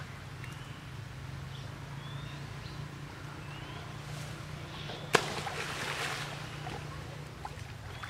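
Monkeys swimming in a muddy pond: water sloshing, with one sharp splash about five seconds in and a second or so of splashing water after it. A few faint, short rising chirps are heard now and then.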